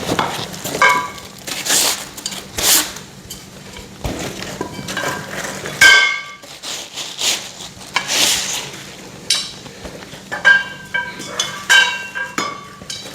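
Metal parts of a flat-pack TV stand's steel frame and mesh shelves clinking and knocking together as they are handled and set down, a string of separate strikes, some ringing briefly, the loudest about six seconds in.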